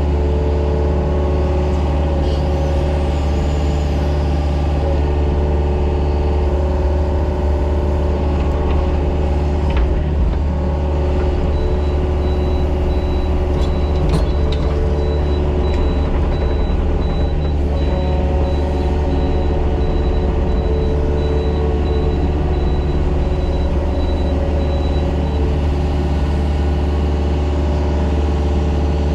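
Mini excavator's diesel engine running steadily under working load, with a few brief knocks about a third of the way in and a faint, evenly pulsing high tone through the middle.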